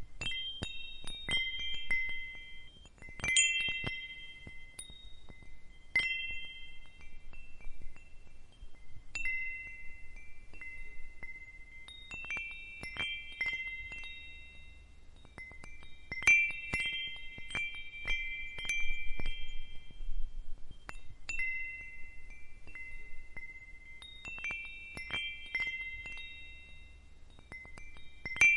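Wind chimes tinkling at uneven intervals, several high metallic tones struck together and ringing on over one another.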